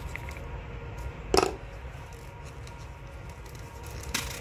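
A single sharp knock on the tabletop about a second and a half in, then a fainter click near the end, over a low steady hum.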